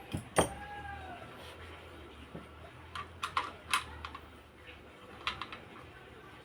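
Scattered sharp clicks and taps of small parts and tools being handled during electric fan repair work: one loud click about half a second in, a quick run of clicks around three to four seconds, and two more just past five seconds, over a faint low hum.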